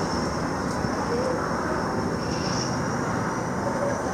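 Steam-hauled train pulling away down the line: a steady rumble of the locomotive and its coaches running on the track.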